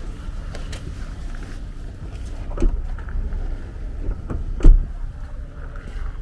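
Car cabin noise while driving: a steady low road-and-engine rumble, with two sudden thumps, the second, about four and a half seconds in, the loudest.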